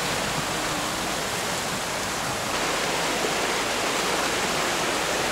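Fast-flowing stream rushing steadily, a little louder about halfway through.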